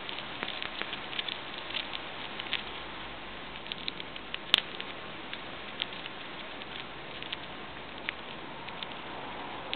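Dwarf hamster nibbling popcorn: quick, irregular little crunching clicks, thickest in the first few seconds, with one sharper click about four and a half seconds in.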